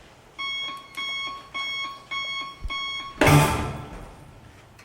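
Electronic alarm clock beeping: five pitched beeps at about two a second. The beeps are cut off by a sudden loud noise burst that fades over most of a second.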